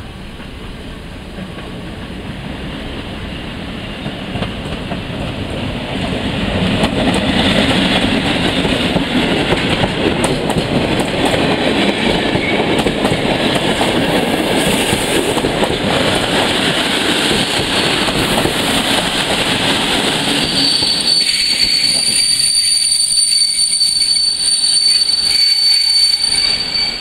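EU07 electric locomotive and its passenger coaches arriving: the rumble and clatter of wheels on rail grows louder as the train approaches and rolls past. About twenty seconds in, a high steady squeal sets in while the rumble dies away as the train slows to a stop.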